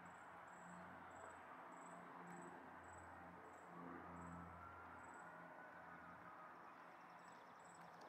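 Near silence: faint outdoor ambience with a low hum that swells briefly mid-way, and a faint high chirp repeating about twice a second.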